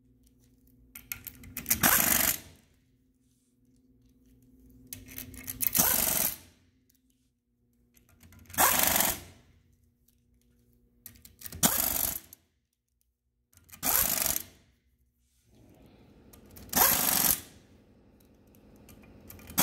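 Cordless power driver on a long socket extension running bolts into the cast-iron drive plate of a Ranger gear pump, one bolt at a time: six short bursts of the tool about three seconds apart.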